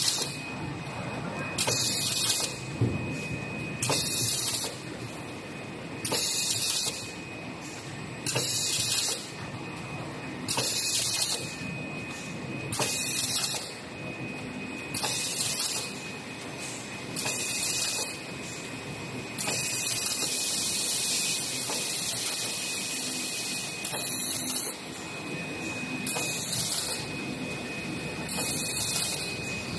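Portable-pack wet wipes making machine running, with a steady mechanical hum and a faint high whine, and a sharp hiss of air about every two seconds, each lasting under a second; one hiss about two-thirds of the way through lasts longer, over two seconds.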